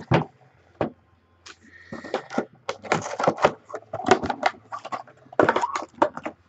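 Hands opening a cardboard trading-card box and handling the card packs inside: a run of irregular cardboard taps, scrapes and rustles.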